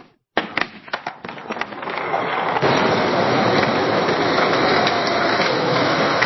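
Skateboard on pavement: a handful of sharp clacks in the first second or two, then the wheels rolling steadily over the rough surface, a loud even grinding rumble that settles in about two and a half seconds in.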